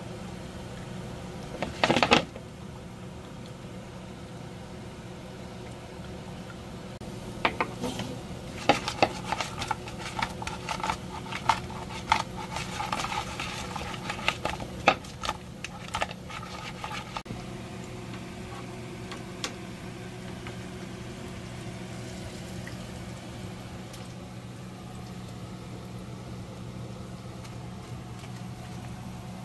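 Hot sauce squirted from a squeeze bottle with a short sputter about two seconds in, then chicken wings tossed in a wooden bowl of sauce: a dense run of slaps and knocks for about ten seconds. A steady low hum runs underneath.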